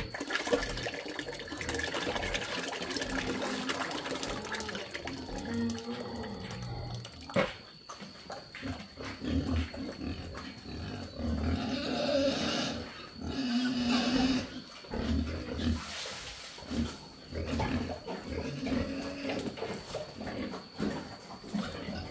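Thick cooked pig feed pouring from a large pot into a bucket, then pigs grunting in short repeated calls at the trough as they are fed.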